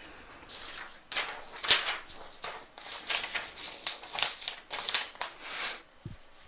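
Handling noise: a run of short rustling, crinkling scrapes, roughly two a second, then a soft low thump near the end.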